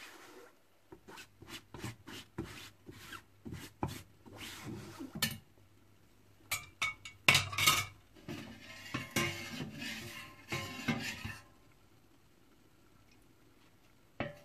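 Metal kitchen utensils clinking and scraping against a steamer pot's lid and metal pans in irregular knocks and rubs, busiest and loudest about halfway through, then stopping, with one last sharp click near the end.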